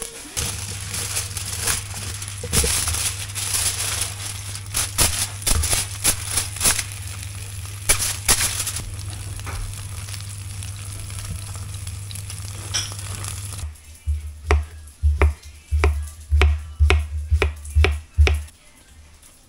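Salmon fillets sizzling in a frying pan, with scattered pops over a steady low hum. About two-thirds of the way through this gives way to a knife chopping cucumber on a wooden board, sharp knocks about three a second.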